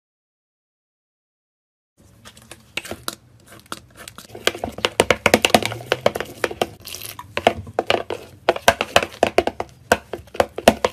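Glossy slime being stirred and pressed with a spoon, giving a quick, irregular run of wet clicks and pops that starts about two seconds in.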